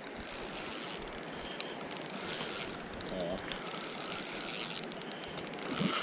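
Shimano Sienna 2500 spinning reel being cranked while a large steelhead is fought on the line, its gears and handle turning, over the rush of the river.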